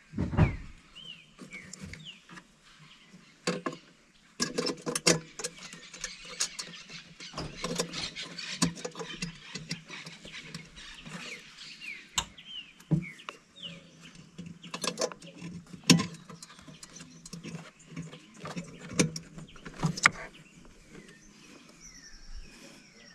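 Clicks and plastic knocks of a Triumph Tiger 800 headlight, as an H4 halogen bulb is pushed into the headlight housing and its retaining clips are snapped into place. The irregular clicking runs densely from about four seconds in until near the end.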